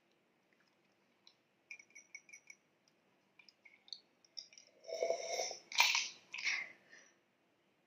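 Close-miked drinking from a glass mug: a few small clicks early, then a slurping sip and swallows, the loudest part, about five to seven seconds in.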